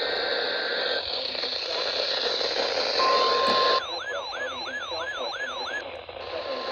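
Emergency alert tones over a hissy, static-filled weather-radio signal: short data-like tones in the first second, a brief steady beep at about 1 kHz around three seconds in, then a siren-like tone that sweeps downward about three times a second for two seconds.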